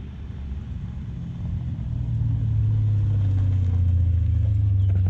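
Toyota Hilux's swapped-in Lexus 1UZ-FE 4.0-litre V8 running as the ute drives along, a low engine note that grows louder about one and a half seconds in and then holds steady.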